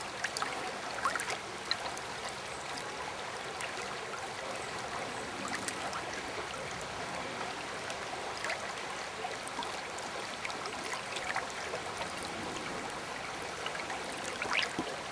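Shallow river running fast over a riffle: a steady rush of water with small splashes and trickles now and then.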